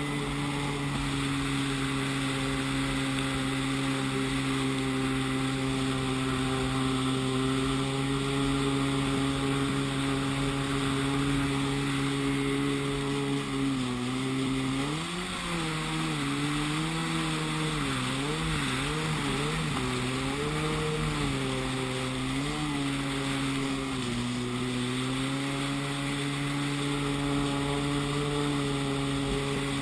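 Yamaha Waveblaster 701 two-stroke twin running hard at a steady pitch under the hiss of water spray and wind. About halfway through, the revs rise and fall repeatedly for some ten seconds as the craft turns. They then settle back to a steady note.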